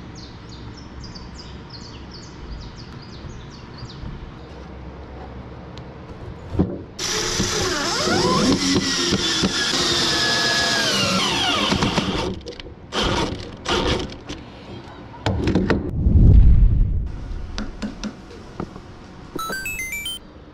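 Cordless drill driving a long screw into a wooden table leg. The motor runs for about five seconds with a whine that falls in pitch as the screw bites, then comes a few short bursts and a loud low thump.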